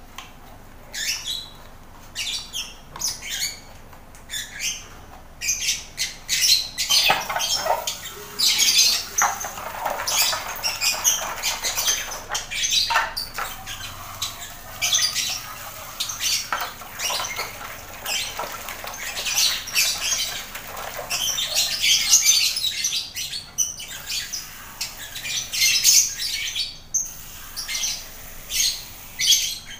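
A flock of lovebirds chirping and squawking, many short high calls. From about a quarter of the way in until near the end, a hose spray nozzle hisses as water is sprayed onto a plastic feeder cup.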